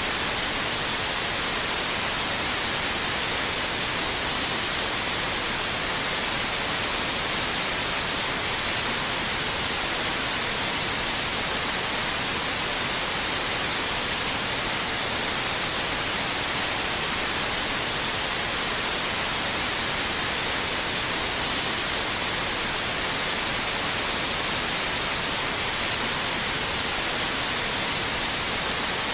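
Steady white noise: an even, unchanging hiss, strongest in the highest pitches.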